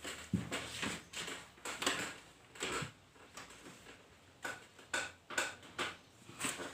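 A series of short, sharp knocks or taps, about nine in all, at uneven intervals.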